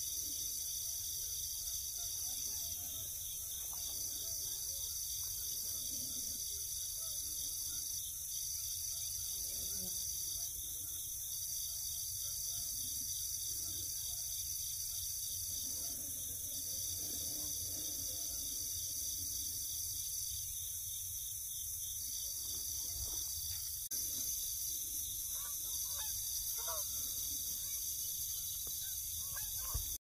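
Steady high-pitched insect chorus with a fast, even trill, over a low rumble.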